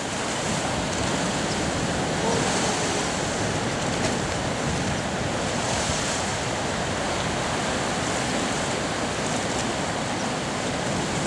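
Ocean surf breaking and washing up a sand beach, a steady rush with louder surges about two and a half seconds in and again around six seconds.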